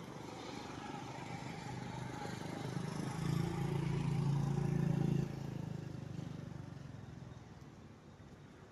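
A small engine passing by: it grows louder, runs at a steady pitch for a couple of seconds, then drops off and fades away.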